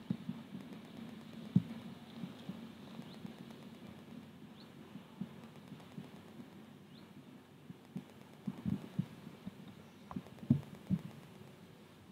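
Steam-hauled passenger train heard from afar: a faint low rumble that fades as it draws away, with scattered low knocks, a small cluster of them near the end.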